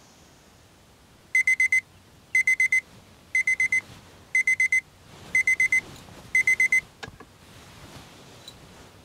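Electronic alarm beeping in groups of four quick high beeps, one group a second, six groups in all, then a short sharp click as it stops.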